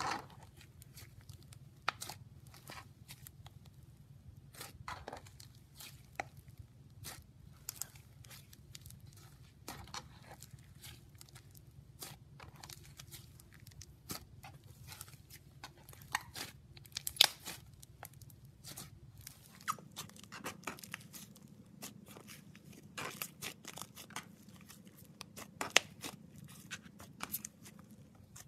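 Hands kneading and stretching fluffy slime, giving irregular sticky crackles and small pops as it is squeezed and pulled apart. A faint steady low hum runs underneath.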